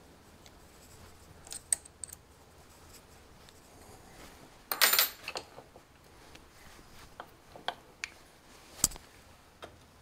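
Scattered metallic clicks and knocks from a metal lathe's toolpost, tool holder and chuck being handled and moved by hand. The loudest cluster comes about five seconds in, and there is a sharp tick near the end.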